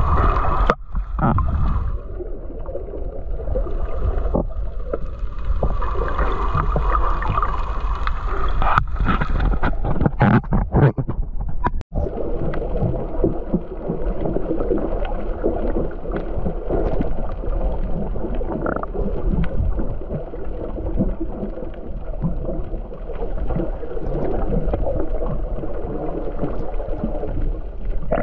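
Muffled water noise picked up by a camera held underwater: a steady churning hiss and gurgle, with a few knocks about nine to eleven seconds in and a brief cut-out a little after.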